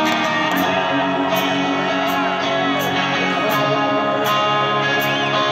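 Live rock band playing, guitar to the fore, with a steady beat about every three-quarters of a second.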